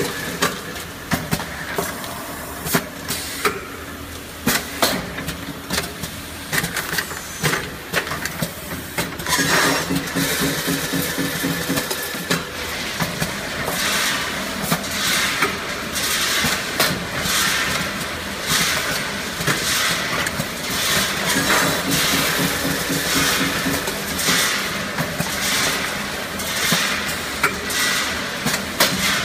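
Automatic premade-bag filling and sealing machine running: a steady motor hum under a string of sharp clacks and short air hisses as its pneumatic grippers and sealing jaws cycle, coming quicker and busier about halfway through.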